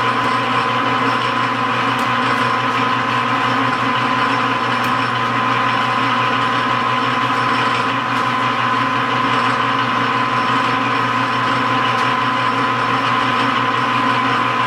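Metal lathe running steadily while it faces the end of an aluminium cylinder. The motor and gearing give an even hum with a constant high-pitched whine.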